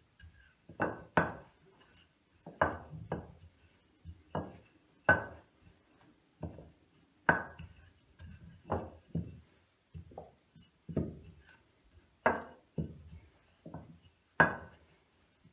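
A wooden rolling pin being pushed back and forth over firm dough on a silicone pastry mat. It makes an irregular run of short wooden knocks and rolling rumbles, about one or two a second.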